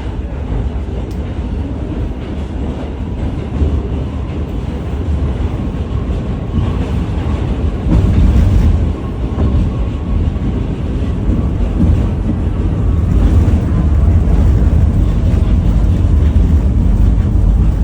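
New York City subway D train running, heard from inside the car: a steady low rumble that swells louder about eight seconds in and again in the second half, with a faint thin whine in the middle.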